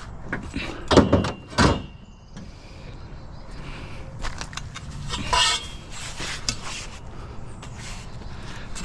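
Scrap pieces being handled and set down: two loud knocks about a second in, then lighter clatter and a rattling scrape about five seconds in.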